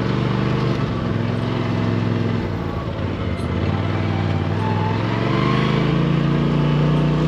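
Motor vehicle engine running steadily, its note dipping slightly and then rising a little about halfway through.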